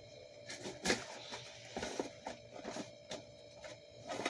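Items and packaging being handled and rummaged through in a mystery box: scattered light knocks and rustles, the sharpest about a second in.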